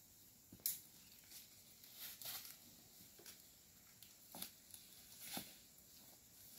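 Faint, scattered rustles and snaps of water buffalo grazing and moving through leafy undergrowth, several irregular short noises over a few seconds.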